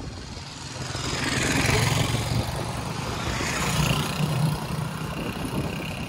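Motorcycle engine pulling away and getting louder over the first couple of seconds, then running steadily at riding speed, with wind hiss on the microphone.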